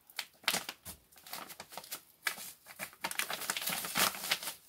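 Plastic bag of powdered milk crinkling and rustling as it is handled, in irregular bursts that grow louder in the second half.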